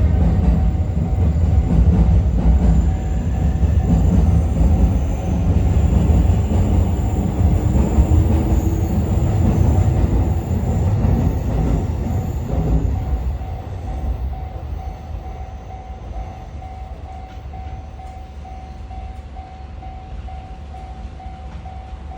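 Cassiopeia passenger train with EF81 and EF64 electric locomotives rolling past over a level crossing: a heavy rumble of wheels on rail that dies away from about 13 seconds in. A level crossing bell rings steadily under it and is heard plainly once the train has gone by.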